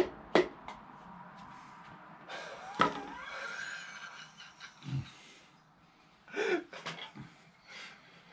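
A few scattered knocks and taps as a piston is driven into a small-block Chevy V8's cylinder bore with a hammer. There is a brief squeak about three seconds in and a low thud about five seconds in.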